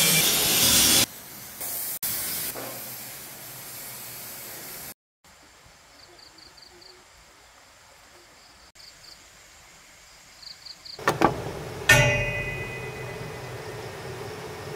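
A power tool runs loudly and cuts off about a second in, followed by low, quiet stretches. Near the end a single sharp clang, likely metal being struck, rings on and fades over about a second.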